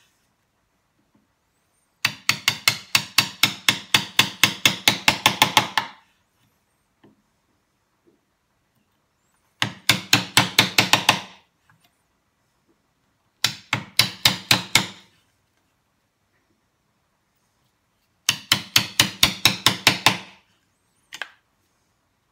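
Wooden mallet striking a chisel to chop out the waste of half-blind dovetail sockets. Quick sharp taps, about five a second, come in four runs with pauses between them: one long run of about four seconds, then three shorter ones, and a single tap near the end.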